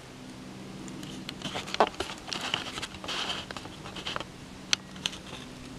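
Footsteps through dry fallen leaves: an irregular run of rustles and crackles, busiest in the middle.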